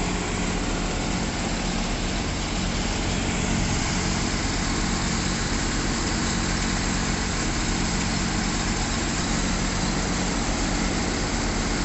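Engine of a crawler-mounted piling rig running steadily, with no hammer blows.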